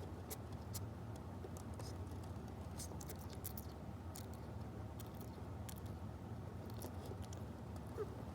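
A sleeping hedgehog making faint sleep sounds: scattered soft clicks throughout, and a tiny rising squeak near the end, over a steady low hum.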